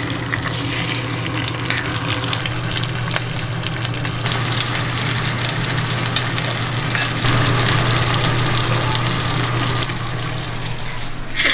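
A pot of soup cooking on a hob: a steady bubbling, sizzling hiss over a low steady hum, shifting slightly in level a few times.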